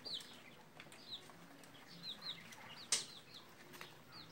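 Chicks peeping: short, high, downward-sliding peeps in little clusters, with a brief sharp rustle about three seconds in.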